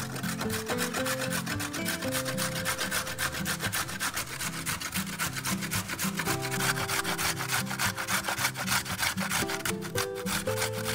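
A carrot being grated on a stainless steel box grater: a fast, continuous run of rasping strokes against the metal blades.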